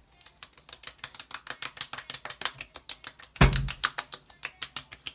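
Palms patting the cheeks in quick succession to work skincare cream into the skin: a rapid, even run of light slaps, about seven a second, with one much louder thump about three and a half seconds in.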